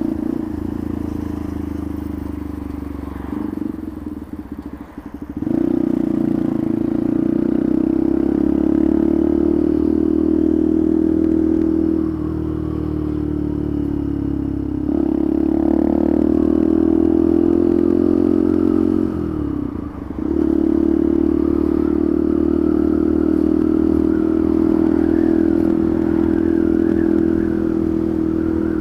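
Single motorcycle engine running under way. Its note drops sharply and picks up again several times, as at gear changes or throttle lifts, with the clearest breaks about four to five seconds in and about twenty seconds in.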